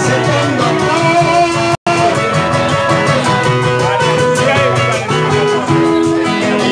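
Guitars playing a merengue live, plucked string melody over the accompaniment. The sound drops out completely for an instant about two seconds in.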